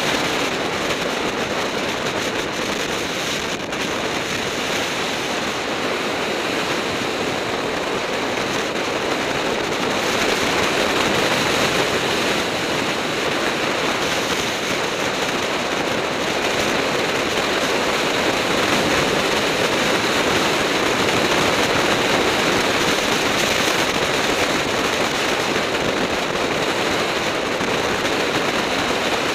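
Steady rush of wind over the camera microphone on a fast road-bike descent.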